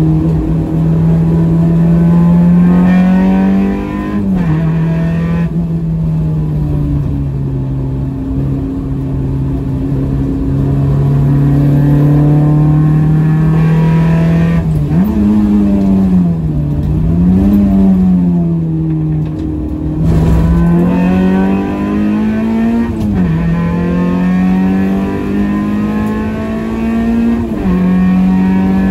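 Honda H-series inline-four engine pulling hard on track, heard from inside the car's cabin. Its note climbs under throttle and drops sharply at each upshift, about four seconds in and again twice near the end, with the revs swinging up and down through the corners in the middle, over constant road and wind noise.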